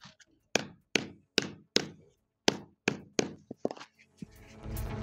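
A small hammer strikes a thick wad of folded paper on a packed-earth floor: about ten dull knocks in four seconds, with a short pause midway. Background music comes in near the end.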